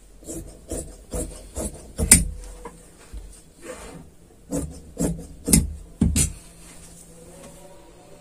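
Large tailor's shears cutting through cloth on a cutting table: a run of about a dozen short, rasping snips, the loudest about two seconds in, stopping about six seconds in.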